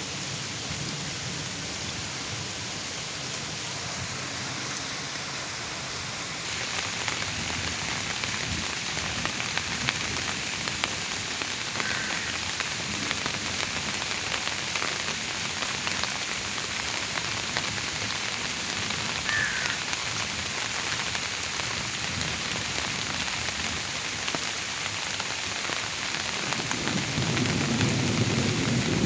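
Steady rain falling, heavier from about six seconds in. Low thunder rumbles near the start and builds again near the end.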